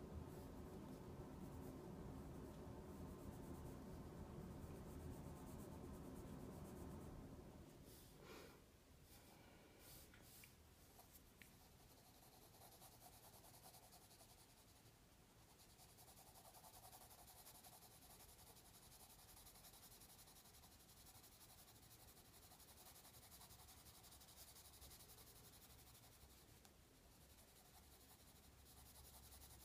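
Graphite pencil shading on paper: a faint scratching hiss that turns steady after about twelve seconds.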